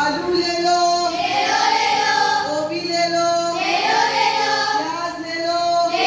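A group of girls singing together in unison, in short phrases with held notes.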